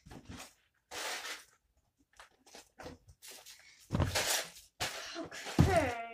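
Plastic Lego pieces being handled and rummaged through, clattering, with a heavier knock about four seconds in. A short voice sound comes near the end.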